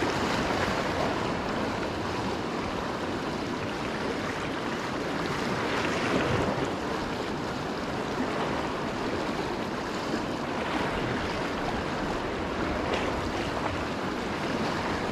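Ocean surf washing against shoreline rocks: a steady rush of water that swells a couple of times.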